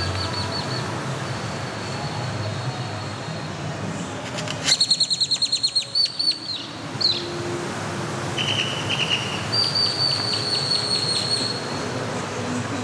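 Birds calling in the open air, the loudest a fast run of repeated high notes about five seconds in, followed by a brief whistle and two more quick trills, over a steady background hush.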